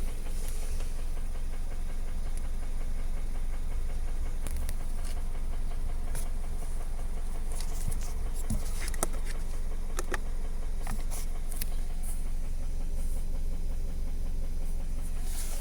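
Subaru FB20 2.0-litre flat-four engine running at a steady speed with a knock in it, which the owner calls knocking.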